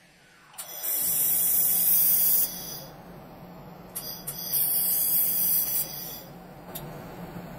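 Handheld fiber laser welder (Acctek AKQH-1000) welding stainless steel with wire feed: two bursts of high, hissing sizzle, each about two seconds long, over a steady lower hiss from the machine.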